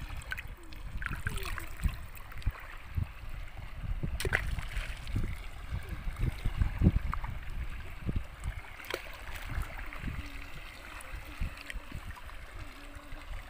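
Shallow seawater sloshing and gurgling at the shoreline, with irregular low thumps and scattered clicks.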